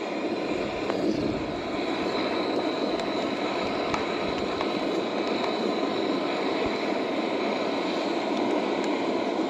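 Steady rushing roar of a camp stove burner under a pot of boiling water, with rain falling and a few faint taps.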